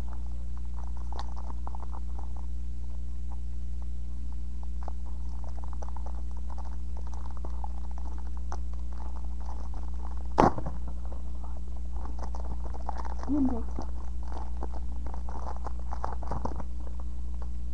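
Foil booster-pack wrapper crinkling and being torn open by hand, with small rustles and clicks of the pack and cards being handled, and one sharp knock about ten seconds in, all over a steady low hum.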